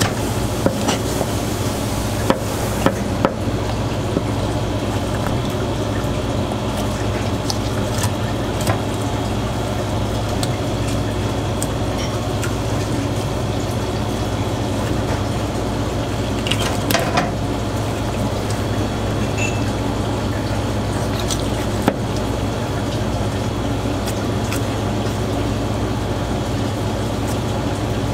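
Kitchen knife working a pufferfish on a plastic cutting board while it is skinned: scattered light clicks and taps with a few wet sounds, over a steady low hum.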